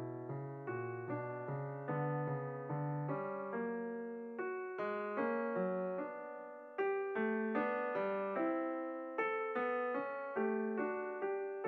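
Background piano music: a calm melody of struck notes and chords, each fading before the next.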